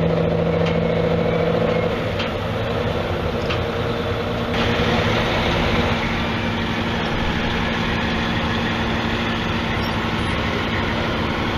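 Detroit Diesel engine of the Earthquake four-wheel-drive tractor running as it drives past towing plows; its pitched engine note is strong for about two seconds, then fades into a steady wash of noise as the tractor moves off and the plows roll by.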